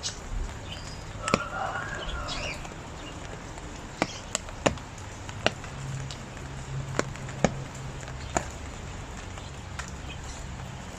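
Rain falling steadily, with irregular sharp drips striking a hard surface. Birds call briefly about a second in.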